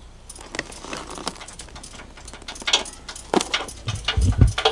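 Irregular metallic clinks and rattles of tools and parts being handled, getting busier partway through, with a few dull knocks about four seconds in.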